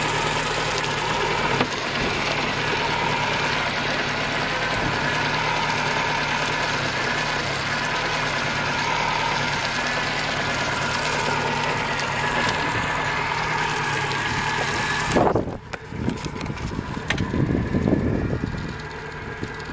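Yamaha four-stroke outboard motor idling steadily, with its cooling-water stream splashing into the water beside the leg. About 15 seconds in the sound drops abruptly to a duller, quieter engine hum.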